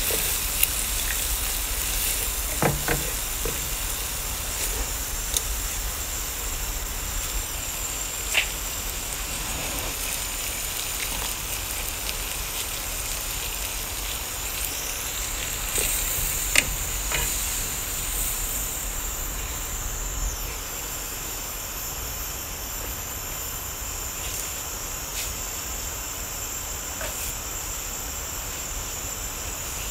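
Crab meat sizzling in oil in a nonstick wok, a steady high hiss with a few spatula taps and scrapes in the first seconds. It turns a little quieter in the second half, once liquid is in the pan and it bubbles.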